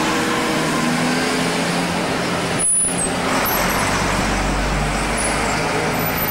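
Road traffic: motor vehicle engines running by, with a deeper low rumble coming in about halfway through.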